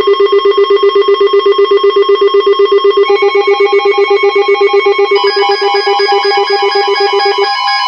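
A loud electronic alert tone trilling rapidly, about eight pulses a second, like a telephone ring. Higher tones join about three and five seconds in, building a layered chime, and the lowest pulsing tone drops out near the end.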